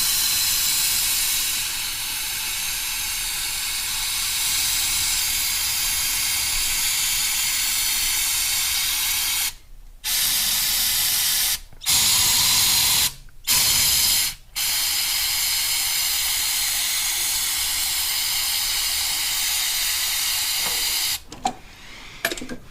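Aerosol can of starter fluid spraying in one long, steady hiss, stopping briefly four times around the middle and cutting off near the end. The fluid is being sprayed to prime a cold engine for starting.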